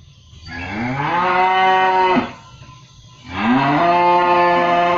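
A cow mooing loudly twice: two long calls, each rising in pitch at the start, held level, and dropping away at the end.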